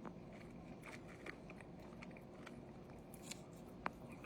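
Faint close-miked chewing, mouth noises of eating, with scattered small clicks and one sharper click near the end.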